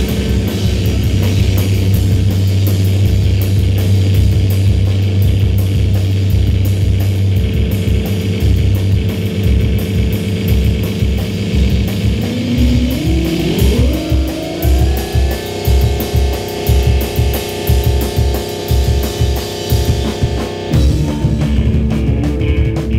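Live instrumental math rock from electric guitar and drum kit. About halfway through, the guitar slides upward in pitch and settles into sustained higher notes over a steady pounding drum beat, and the music changes again near the end.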